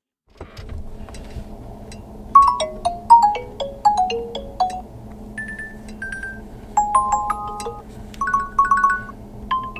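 Ringtone on a Nokia G22 smartphone: a chiming, mallet-like melody of quick short notes over a soft sustained backing, the bell notes coming in about two seconds in.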